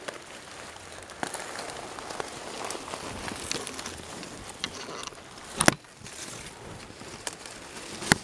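Close rustling and crackling of dry grass, leaf litter and cloth as someone moves low to the ground. Two sharp knocks stand out, the louder about five and a half seconds in and another near the end.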